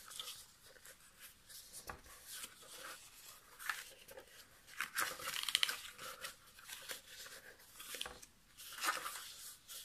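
Stiff cardstock being folded by hand along its score lines, with short rustling paper noises several times as it is bent and creased.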